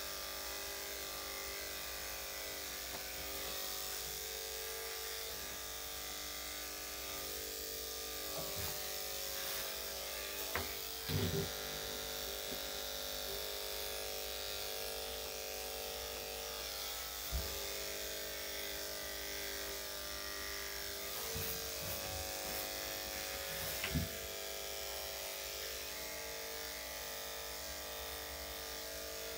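Electric dog clippers with a #7 blade running with a steady hum while clipping a dog's coat, with a few brief knocks, the loudest about eleven seconds in.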